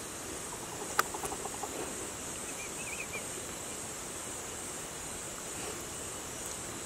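Steady rural outdoor ambience with an even, high-pitched insect drone. A single sharp click comes about a second in, followed by a quick run of faint ticks, and a short faint chirp comes around the middle.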